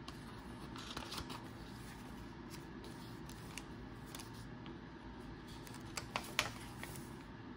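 Paper pages of a handmade junk journal being turned and smoothed by hand: faint paper rustling with scattered light ticks, and a few sharper clicks about six seconds in.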